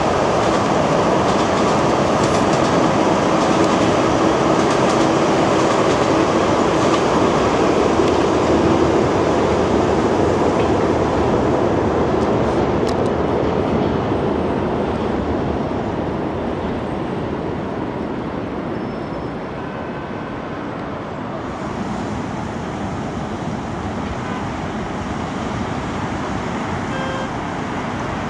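Trains passing on the railway below, heard from high above: a steady rumble of wheels on rails that is loudest in the first half and fades away, over city road traffic.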